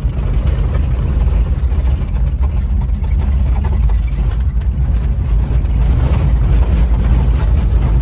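Volkswagen Kombi van driving slowly over a dirt road in second gear, heard from inside the cab: a steady low rumble of engine and tyres, with the body shaking and rattling on the rough surface.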